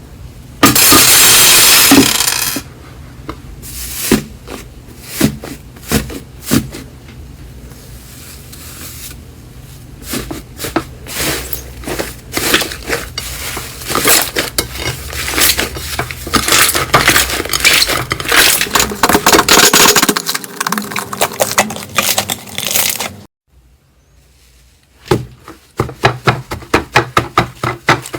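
Slime being pressed and poked by hand, giving a run of crackles and sharp clicks. A loud crunching rush comes about a second in, the clicking grows dense in the middle, and after a short lull it picks up again as a quicker, even clicking.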